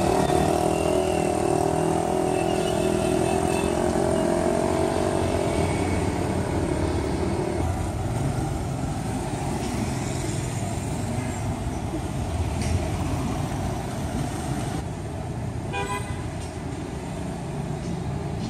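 Street traffic: cars and motorbikes running by on a city road. For the first several seconds a pitched engine drone sits over it and slowly falls in pitch.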